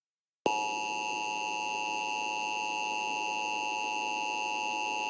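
Emergency Alert System attention signal: a steady, harsh electronic alert tone that starts abruptly about half a second in, after a moment of silence, and holds unchanged. It is the warning tone that comes before the spoken emergency message.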